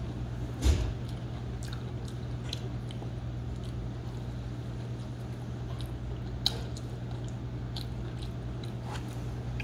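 Close-up mouth sounds of a man biting and chewing pizza, with scattered small wet clicks, over a steady low hum. A short thump a little under a second in is the loudest sound.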